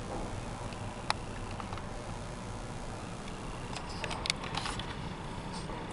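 Steady low rumble heard from inside a vehicle's cabin, with a single sharp tick about a second in and a cluster of ticks and clicks about four seconds in.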